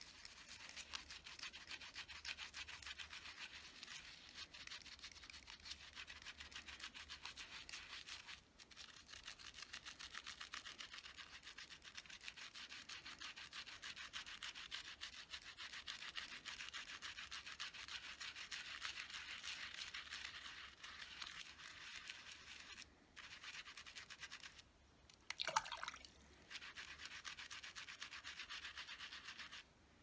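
Makeup brush bristles scrubbed rapidly back and forth over a soapy silicone brush-cleaning pad: a faint, fast, bristly swishing that pauses briefly a few times. About 25 seconds in there is one short louder sound before the scrubbing resumes.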